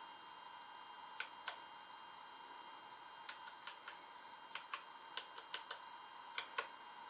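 Keys of a 4Court 970 printer key pad clicking under a finger, about fourteen short presses in irregular groups, over a faint steady hum.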